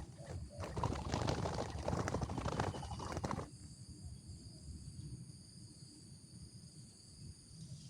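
Rustling, crackling noise for about three seconds, then quieter, over a steady high-pitched drone. A faint low coo of a spotted dove follows in the quieter part.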